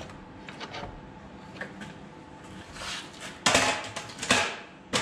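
Hand tools and metal parts being handled during a steering rack job: a few light clicks, then two louder rattling scrapes about three and a half and four and a half seconds in, and a sharp clink near the end.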